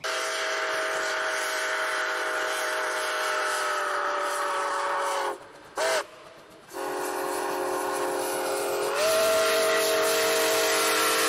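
Steam locomotive's chime whistle blowing: one long blast, a short toot about six seconds in, then another long blast that steps up slightly in pitch about nine seconds in.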